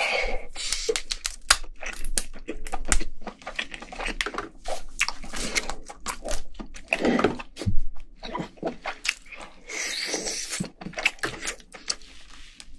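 Cooked king crab being broken apart by hand: many sharp cracks and snaps of shell with tearing of the meat, mixed with chewing.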